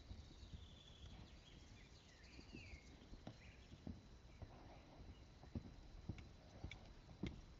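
Faint, irregular thuds of a horse's hooves on a sand arena as it moves loose at trot and canter.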